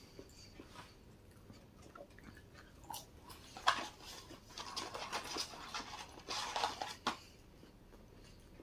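Eating chicken nuggets and fries: soft chewing, then about three to four seconds of louder crinkling and crackling from handling the paper fry carton and bag, ending in a sharp click.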